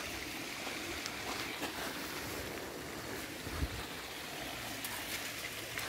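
Steady rushing of a shallow river flowing, with a faint low knock about three and a half seconds in.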